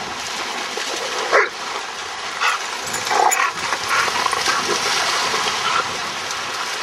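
A dog barking, several short barks a second or so apart, over a steady wash of small lake waves. Near the start there is splashing as a dog runs through shallow water.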